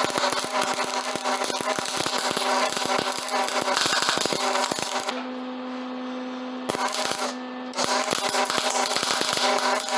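Wire-feed welder arc crackling as a bead is run on a steel tank. The arc stops about five seconds in, strikes again for half a second, then runs again until it cuts off at the end, over a steady low hum.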